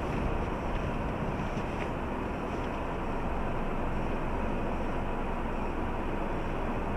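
Steady low rumble and hiss inside the cabin of a stopped car, its engine idling.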